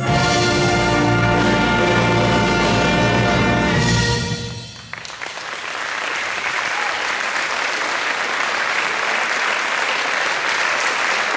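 A concert wind band with drum kit holds a final sustained chord that dies away about four seconds in. The audience then breaks into steady applause that builds and carries on.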